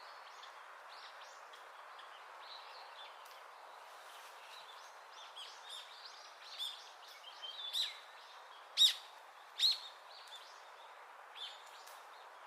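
Small birds chirping: many short, high calls over a steady background hiss, growing busier partway through, with the two loudest chirps about nine and ten seconds in.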